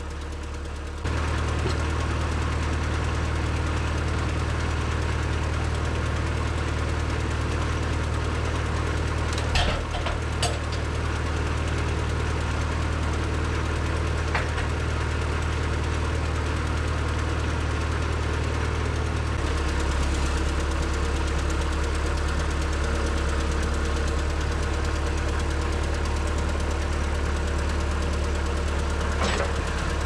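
John Deere 310SE backhoe's diesel engine running steadily at low revs, with a few short knocks about ten seconds in. The engine note changes about a second in and again about twenty seconds in.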